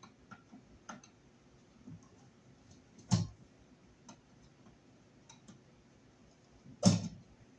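Screwdriver clicking and tapping on the terminal screws and metal frame of an old line-voltage baseboard-heater thermostat as the wires are unscrewed. Light scattered clicks, with two louder sharp clicks about three seconds in and near the end.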